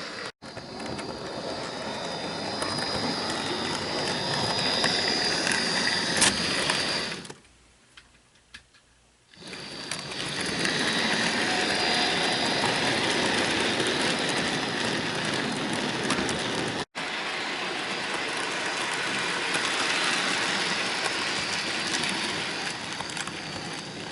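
Bachmann model diesel locomotive running along the track: a steady electric-motor whine with wheel and gear noise. It drops to near silence for about two seconds, about seven seconds in.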